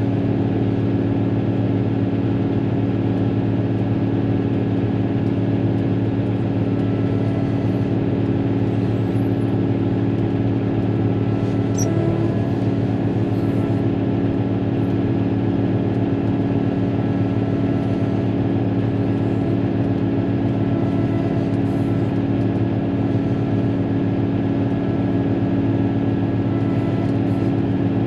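Caterpillar motor grader's diesel engine running steadily at a constant pitch as the machine travels, heard from inside the cab.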